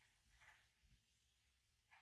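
Near silence, with two faint, soft brushing sounds, about half a second in and near the end, of a kitten licking and nuzzling a cat's fur.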